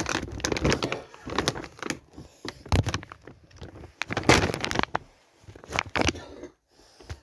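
Ariel laundry detergent packaging being handled and opened: a string of plastic clicks, knocks and rustles, the loudest bursts about three and four seconds in.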